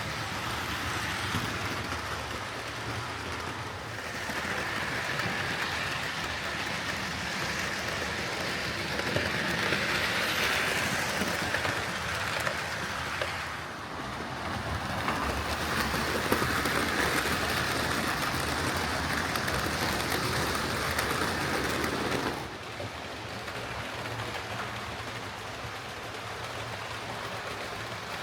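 Hornby Railroad Class 9F OO gauge model locomotive running along the track, a steady motor whirr and wheel rumble. It grows louder and fades in turn, and drops away sharply about three quarters of the way through.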